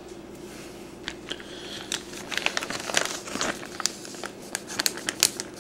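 Clear plastic zip-top bag crinkling as it is handled and pulled open, a quick run of crackles that thickens from about two seconds in.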